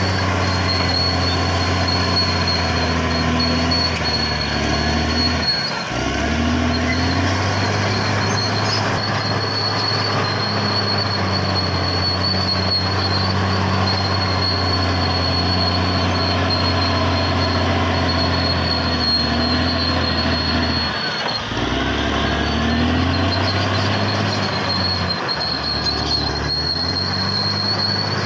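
Caterpillar D6R XL bulldozer working: its diesel engine runs steadily with track squeal and a steady high whine over it. The engine note drops and picks back up twice, about 6 and 21 seconds in.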